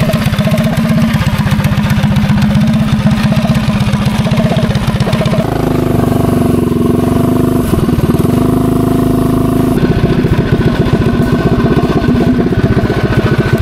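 Minibike cruiser's small gas engine running while the bike is ridden. The engine note rises about five seconds in and drops back near ten seconds.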